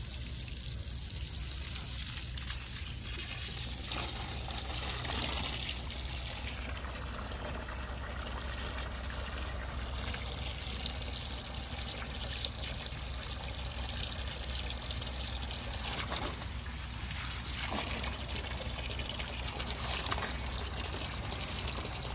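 Water spraying from a hose onto a pig and the wet, muddy straw of its pen: a steady hiss and splatter that keeps on without a break.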